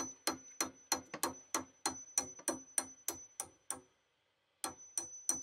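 A metal hammer tapping on the end of a boat's steel propeller shaft, about three or four strikes a second, each with a high ringing ping. The strikes pause for under a second near the end, then resume. The taps are driving the shaft back into the transmission's output coupling to set it at its paint mark.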